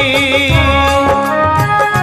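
Background music: a Hindi devotional song with instruments and a steady beat.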